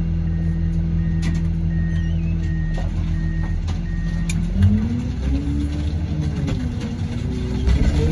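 Car crusher's engine and hydraulics running steadily, then rising and wavering in pitch from about halfway as the crushing lid is driven down onto a car, with a few sharp cracks of the car giving way. A high warning beep repeats steadily throughout.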